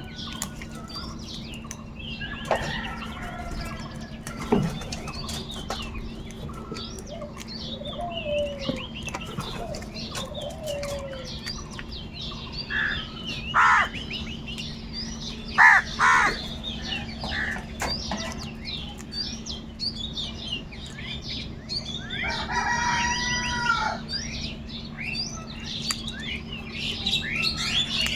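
Crows cawing, a few loud harsh calls around the middle and a longer call a little over two-thirds through, over the continual chirping of small birds.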